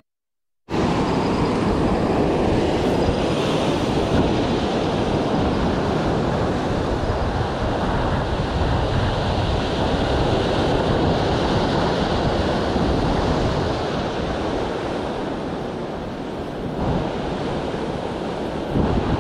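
Ocean surf breaking and washing over a rock ledge, a steady rushing noise with wind buffeting the microphone, after a brief dropout at the very start.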